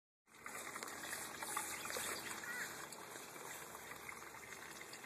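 Water trickling steadily into an aquaponics fish pond, with a short high chirp about two and a half seconds in.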